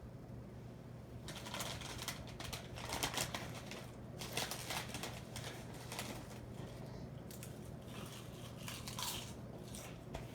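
Emerson 1895-series ceiling fan's KB55 motor running on high with a steady low hum. From about a second in, irregular rustling and clicking sounds over it.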